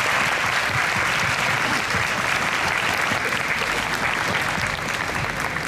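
Audience applauding steadily, the clapping tapering off slightly near the end.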